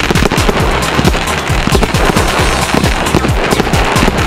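Fireworks popping and crackling in a rapid, continuous volley, mixed with music.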